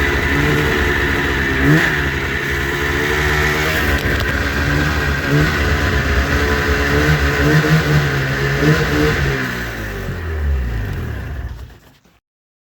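1989 Yamaha Exciter 570 snowmobile's two-stroke engine running after its rebuild, blipped up in revs several times. In the last couple of seconds the engine note drops away, and then the sound fades out.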